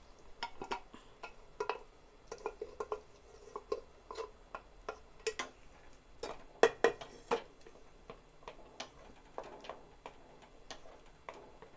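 A wooden spatula knocking and scraping against a metal kadai as boiled dal and taro are poured in and stirred. The knocks are irregular, a few each second, with the loudest a little past the middle.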